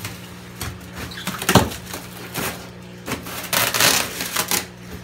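Plastic fish-shipping bags rustling and crinkling as they are handled in an insulated shipping box, with a sharp knock about a second and a half in. Near the end, water pours and splashes out of a bag for about a second.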